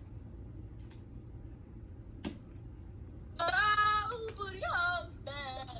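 A single click, then about three and a half seconds in a high female voice starts singing in held, wavering notes, heard through a phone speaker over a low hum.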